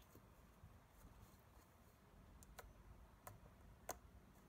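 Near silence with a few faint, sharp clicks, about three in the second half, the last the loudest: hands pressing and patting a soft slime blob.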